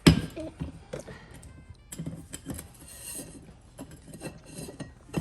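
Cups being handled and opened on a kitchen counter: a sharp knock at the start, then a string of light clinks and clatters.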